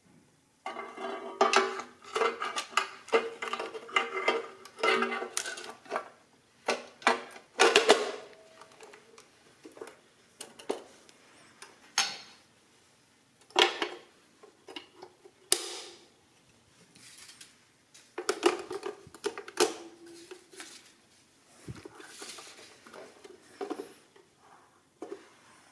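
The metal case of a Precisa 102-1 adding machine being lowered over the mechanism and fitted back onto the base: a dense run of metallic clatters and scrapes for the first several seconds, then scattered knocks and clicks as it is seated.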